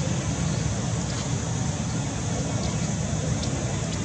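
Steady low rumble with a hiss over it, and a few faint light ticks.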